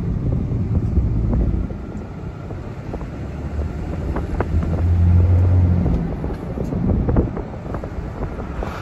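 Cab of a Dodge Ram pickup with a Cummins turbo-diesel and G56 six-speed manual, upshifting toward fifth. The low engine drone pulls, drops away about two seconds in, builds again and falls off just after six seconds as the clutch goes in for the next gear, over road noise with small clicks and knocks. The shifts are going through fine on the fresh Hotshots Diamond G56 gear oil.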